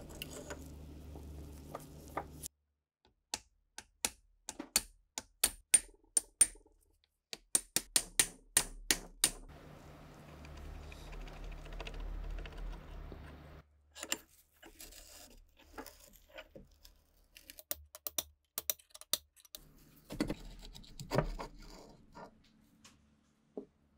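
Sharp metallic clicks and taps of pliers and rusty steel parts as a 1942 STEN Mk2 submachine gun is worked on in a vise, coming in quick clusters. A low steady hum runs underneath in stretches.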